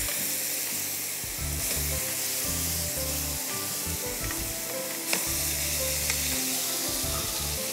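Chicken in a creamy tomato sauce sizzling in a pan on a gas stove as it is turned over and stirred, with a few light clicks of the spoon against the pan about five seconds in.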